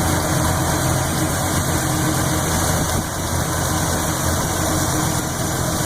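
Small-block Chevy 400 V8 idling steadily with a lifter tick from the even-side cylinder bank, which the owner suspects is a bad lifter since the valve lash checks out.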